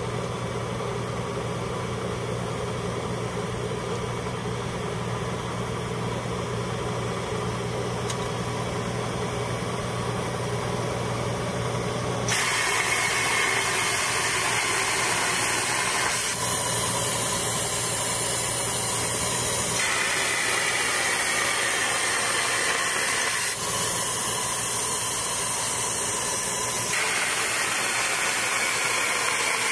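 Road-marking machine's engine running steadily. About twelve seconds in, a loud, even hiss of hot spray-plastic jetting from the marking gun takes over, its tone shifting every few seconds.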